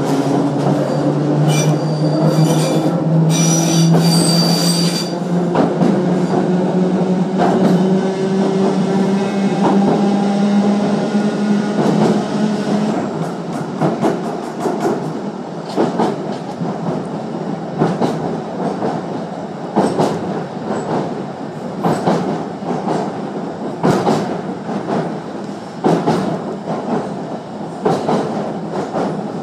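Inside a Class 483 (ex-London Underground 1938 Stock) electric train on the move: the traction motors whine, rising slowly in pitch as the train gathers speed, with a high wheel squeal from about two to five seconds in. The whine stops about thirteen seconds in, leaving the wheels clicking over rail joints in a steady rhythm, about one click a second.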